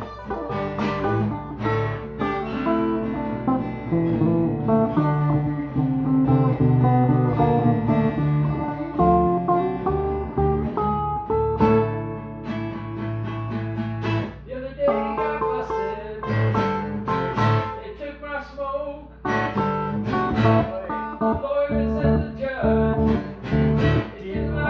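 Stratocaster-style electric guitar being played, a run of picked notes and chords, with brief lulls about 15 and 19 seconds in.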